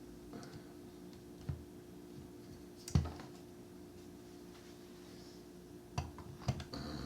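A few scattered light clicks and knocks of objects being handled close by, the loudest about three seconds in and a quick cluster near the end, over a faint steady hum.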